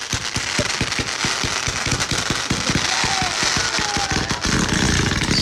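Firecrackers going off in a rapid, irregular string of sharp pops and crackles.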